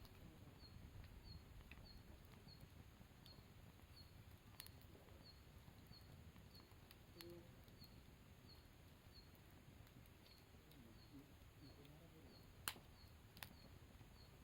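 Very quiet campfire with a few sharp pops from the burning wood, three in all, the loudest near the end. A faint high chirp repeats steadily, about three times every two seconds.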